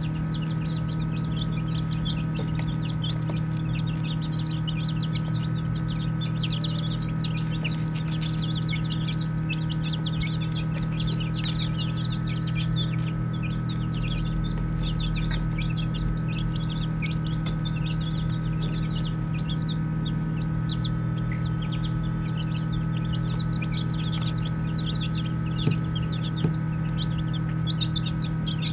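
A brood of baby chicks peeping continuously: many rapid, overlapping high peeps. A steady low hum runs underneath.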